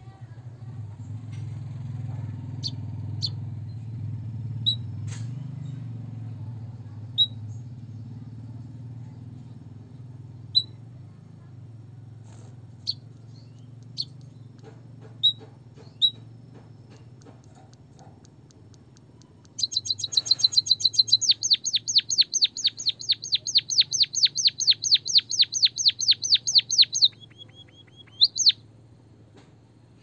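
White-headed munia giving scattered single high chirps. About two-thirds of the way in it breaks into a fast trill of repeated high notes, about six a second, lasting some seven seconds and ending in a short lower phrase and two chirps. A low hum runs underneath and fades.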